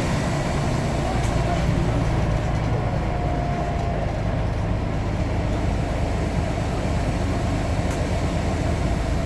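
Scania N94UD OmniDekka double-decker bus engine running steadily under way, a continuous low rumble.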